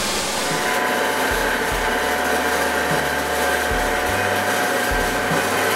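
Narrow-belt grinder running with a knife blade's edge held across the moving abrasive belt to sharpen it: a steady hiss of grit on steel over the motor's even whine, starting just under a second in.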